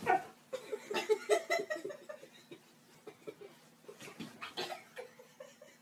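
A child giggling and laughing in short bouts, with a sharp knock right at the start.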